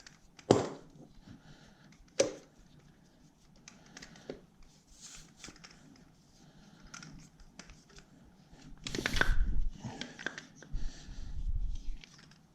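Two sharp clicks and faint handling noises at a tyre valve, then about three seconds of louder, irregular noise with a low rumble as air is pumped into a Xiaomi M365 scooter's rear tyre to top it up past 3.5 bar.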